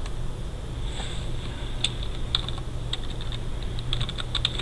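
Typing on a computer keyboard: scattered key clicks from about two seconds in, then a quick run of them near the end, over a steady low hum.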